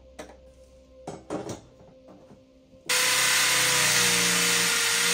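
Corded electric drill boring into a wall, a loud steady grinding whine that starts about three seconds in. Before it, small clicks and scrapes of a screwdriver fastening metal mounting brackets to the back of a TV.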